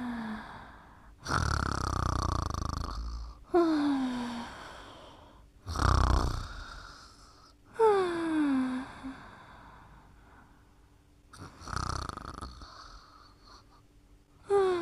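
A sleeper snoring slowly. Each rough, noisy snore is followed a little later by a whistle that slides down in pitch, three of each.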